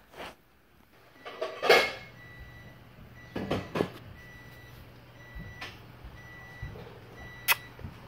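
A high electronic beep repeating steadily, about every half second, over a steady low hum, with a few short knocks and bumps in between.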